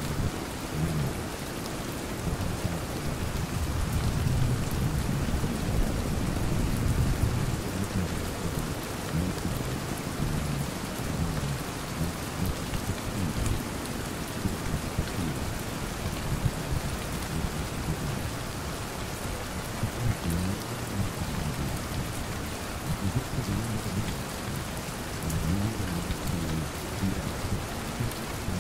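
Steady rain pattering, with an uneven low rumble underneath.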